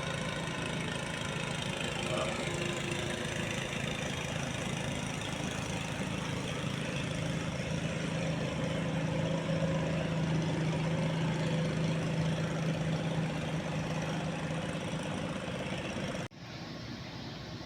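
An engine running steadily with a constant low hum. It cuts off abruptly about 16 seconds in, giving way to a quieter, hissy background.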